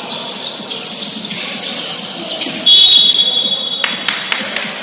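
Referee's whistle blown once in a basketball gym, a loud, shrill, steady blast of about a second beginning halfway in, followed by a few sharp knocks from play on the court.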